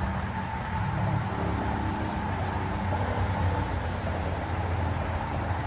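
Steady low rumble with the hum of honey bees buzzing around a brood frame lifted out of an open hive.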